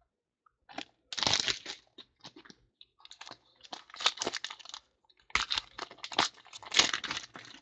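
Foil wrapper of a trading-card pack crinkling and tearing as it is pulled open by hand, in three spells of crackling.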